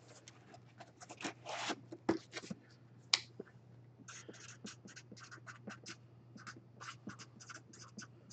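Marker pen writing on a cardboard box lid: a quick run of short strokes through the second half. Before that, the box is handled with a few light knocks and one sharp click about three seconds in.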